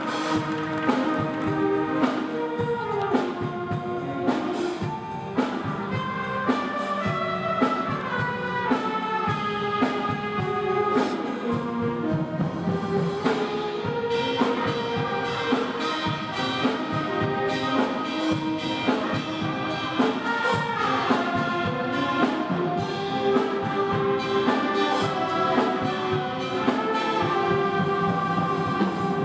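Middle school band playing live, brass instruments carrying the melody over regular drum hits.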